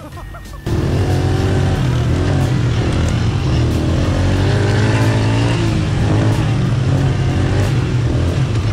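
ATV engine running while riding a dirt trail, a steady drone whose pitch shifts slightly with the throttle. It cuts in suddenly about a second in.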